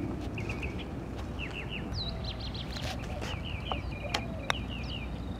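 Small birds chirping in quick repeated short phrases, with two sharp clicks a little after four seconds in.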